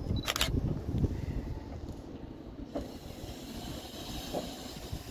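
Low, steady rumble of an exo commuter train rolling slowly through the rail yard, with one short sharp click about half a second in.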